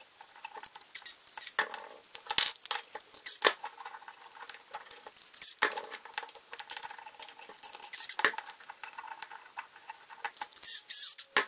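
Thin plywood links clacking and rattling against each other and against steel bolts as they are fitted together by hand: many irregular sharp clicks and knocks.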